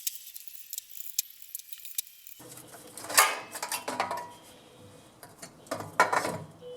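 Metal clinks and knocks of hand tools and small engine parts being handled, a few separate sharp strikes in the second half.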